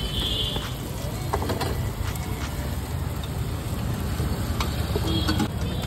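Roadside street ambience: a steady low traffic rumble with scattered short clicks and knocks, and a brief high beep near the start.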